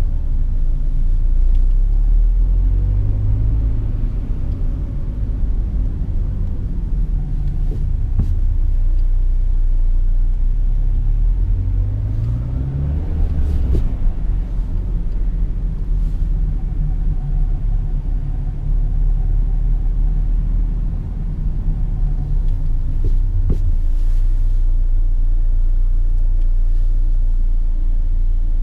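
Peugeot 206 on the move: a steady low engine and road rumble, with the engine note rising as the car accelerates a few seconds in and again about halfway through.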